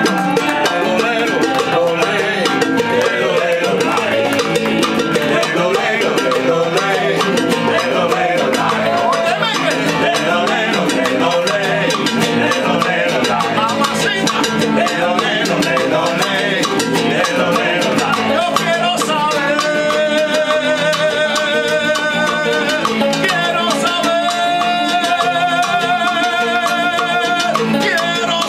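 A live acoustic Cuban son-style band playing: strummed nylon-string guitar and tres over bongos and congas, with a man singing lead into a microphone. Near the end come long held notes.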